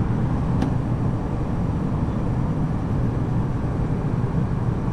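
Airliner cabin noise in cruise: a steady, low drone of engines and airflow.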